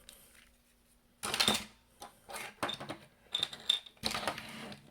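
Hard plastic toy parts clicking, rattling and scraping together as a transforming robot train toy is handled and pulled apart, in several short bursts.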